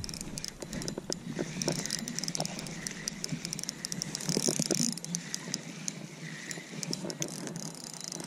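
Spinning reel being cranked, a fast run of small mechanical clicks as line is wound in on a hooked fish.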